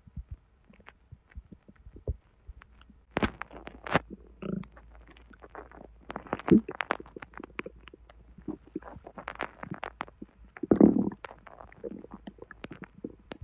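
Human bowel sounds picked up close to the belly: irregular gurgles and many short crackling pops from the intestines, with louder gurgles about four and a half, six and a half and eleven seconds in. The active gurgling comes while hot sweetened tea is moving through a constipated gut.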